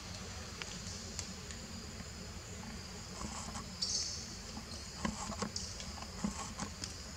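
Steady high-pitched insect chorus over a low hum. From about halfway, a string of soft rustles and taps as a baby monkey stirs against the cloth it sleeps on.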